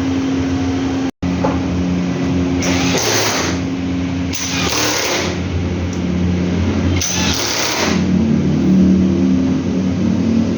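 LG commercial washing machines running during a function test after maintenance: a steady motor hum whose pitch shifts near the end, with three short bursts of hiss a second or two apart.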